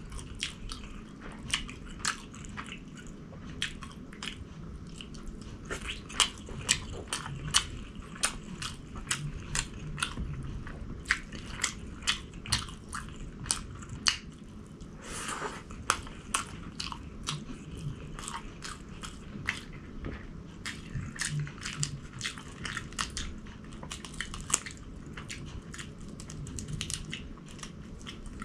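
A person chewing and biting food, with many sharp, irregular clicks and crunches, several a second. There is one short rushing sound about halfway through.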